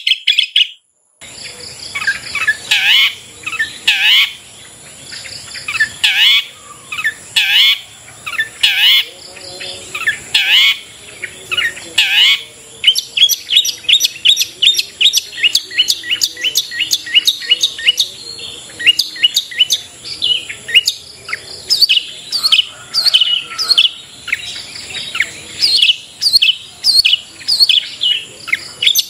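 Long-tailed shrike (cendet) singing: loud, clear down-sweeping calls about once a second, then from about halfway a faster, denser run of chattering notes. A steady high insect drone runs behind. The song starts about a second in.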